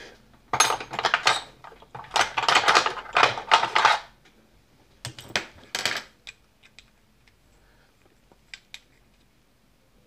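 A steel plug follower scraping and clinking against a brass lock cylinder as it is pressed at the plug, in three rough spells over the first six seconds, then a few light ticks. The follower is too big for this plug.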